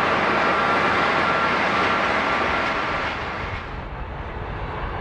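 Jet airliner engines running loud with a steady whine, fading about three seconds in as the high end drops away, leaving a low rumble.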